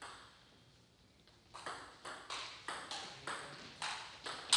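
Table tennis ball being hit back and forth, clicking off the paddles and bouncing on the table in a quick rally. The clicks start about a second and a half in and come in an even run of about three to four a second.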